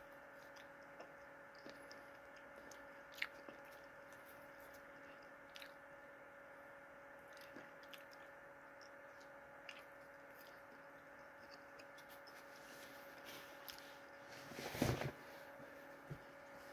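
A person chewing food with the mouth partly open, faint wet clicks and crunches, over a steady faint hum. Near the end comes a brief louder rustle and knock.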